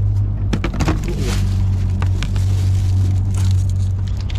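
Boat engine running with a steady low drone, with a few plastic clicks and rustles from a food tray being handled about half a second to a second in.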